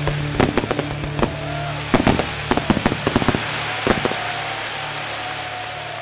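Fireworks going off in a rapid, irregular series of bangs and crackles, thickest about two to three and a half seconds in, then dying away.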